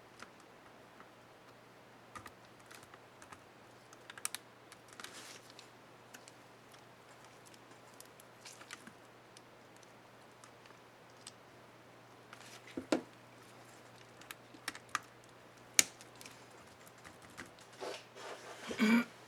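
Scattered light plastic clicks and taps as a keycap is worked onto an Asus K55A laptop keyboard, with a few sharper clicks in the second half and a busier cluster near the end.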